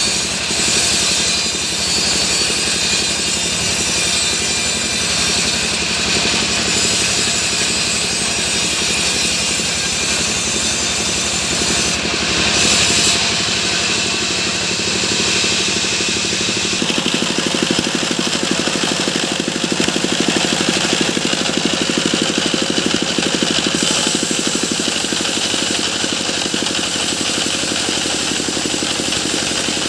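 Sawmill machine running with a loud, steady mechanical noise. About seventeen seconds in, the high hiss eases and an engine's even beat comes forward.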